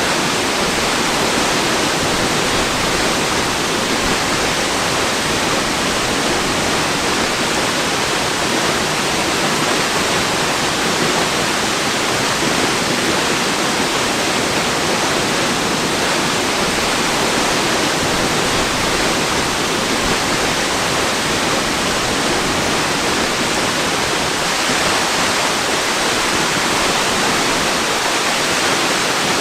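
Waterfall pouring, a steady even rush of falling water with no change.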